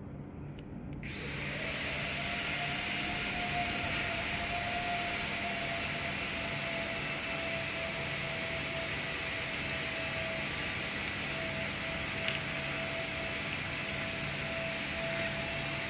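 A machine with a fan or blower starts abruptly about a second in and runs steadily: an even rushing noise with a faint steady whine.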